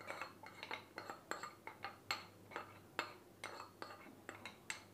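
Steel spoon scraping and tapping against a small tadka pan, knocking the fried onion tempering out onto batter: a run of light metallic clinks, about three a second.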